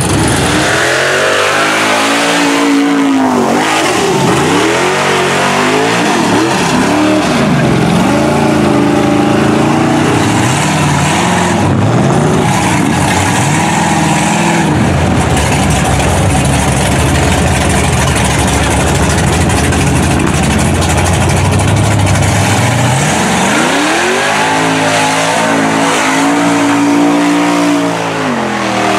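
Naturally aspirated LS V8, an iron-block 6.0 stroked to 402 cubic inches, revving hard as the mud truck churns through a mud pit. The engine note climbs and falls in repeated revs for the first dozen seconds and again near the end, with a stretch of sustained full throttle and mud being thrown by the tyres in between.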